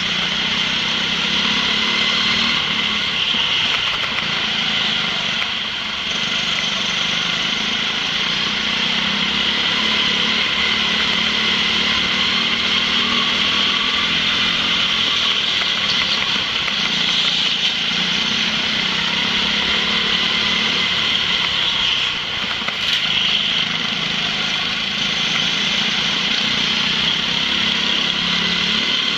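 Go-kart engine running hard under throttle, its pitch wavering up and down through the corners, with brief dips a couple of times as the throttle is lifted.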